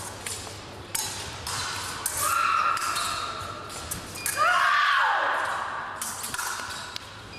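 Épée bout: sharp clicks of blade contacts and fencers' footwork on the piste. A steady electronic tone from the scoring machine sounds for about two seconds, then a louder tone a little after the middle, overlapped by a falling shout.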